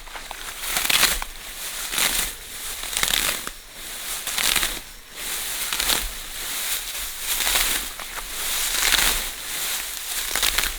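Dry plant material crunching and rustling in repeated strokes about once a second, as grass or leafy branches are cut or handled.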